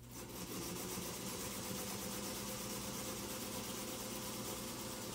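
Singer Featherweight sewing machine running steadily at an even speed, its motor and needle mechanism stitching through quilt layers.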